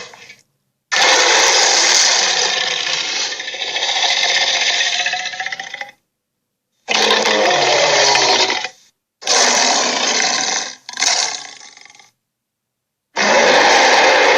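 Dragon roar sound effects: five loud, rough roars, each cut off into sudden silence. The first lasts about five seconds; the others are shorter, and the last one runs on past the end.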